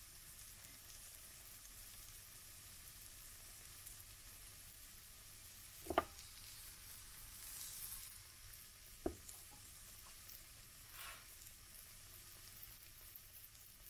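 Pancake batter frying in a pan, sizzling faintly with fine crackles that swell briefly about halfway through. Two sharp knocks stand out, about six and nine seconds in.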